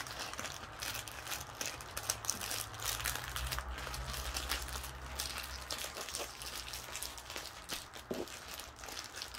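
Small plastic zip bags of diamond painting drills crinkling as they are handled and set down, with many small clicks and rustles throughout.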